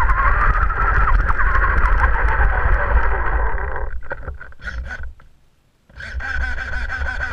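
Radio-controlled buggy driving, its motor whining over tyre and gravel noise, easing off about four seconds in and dying away; the motor and tyres start up again for a second run about six seconds in.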